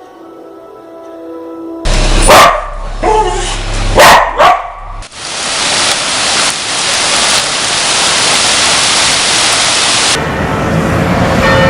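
Soft ambient music cuts abruptly to a dog barking loudly several times. This gives way suddenly to a loud, steady rushing noise, which cuts to a different, lower background near the end.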